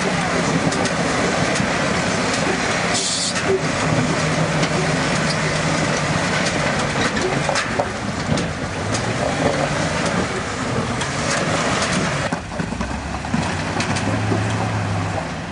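Jeep rock crawler's engine revving up and down as it climbs a boulder ledge, with tyres scrabbling and spinning on rock and stones clicking and knocking under the wheels.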